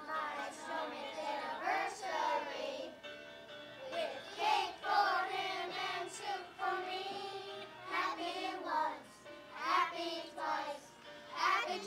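A group of young children singing a song together in chorus.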